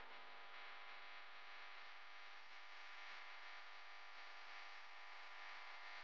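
Near silence: only a faint, steady hiss with a low electrical hum, the recording's background noise.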